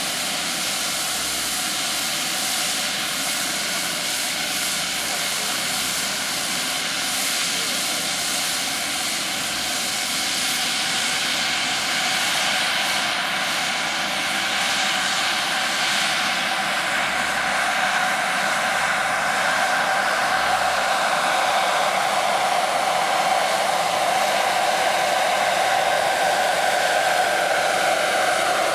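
Small gas turbine of a scale EC-145 model helicopter running with a steady whine over the rotor's whoosh, growing gradually louder as the model lifts off and hovers low.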